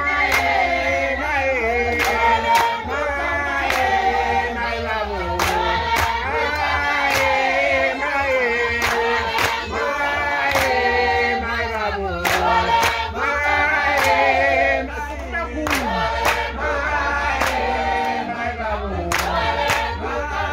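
A group of voices singing together in chorus, traditional songs for a sangoma dance, with sharp beats, drum or handclaps, roughly once a second under the song. Each sung phrase falls in pitch and then starts again.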